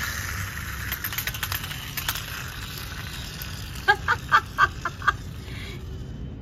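Plastic toy stunt car rolling and tumbling on concrete, its wheels and body rattling and clicking. In the middle comes a quick run of about seven short pitched chirps.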